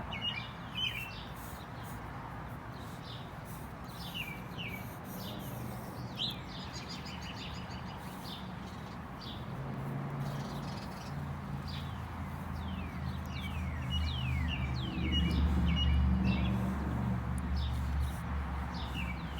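Songbirds chirping, a run of short calls that sweep downward in pitch, repeated throughout. Under them a low hum builds in the second half and is loudest a few seconds before the end.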